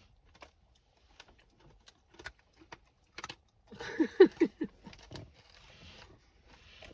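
Scattered small clicks and crinkles of snack packets being handled and opened, with a brief burst of voice about four seconds in.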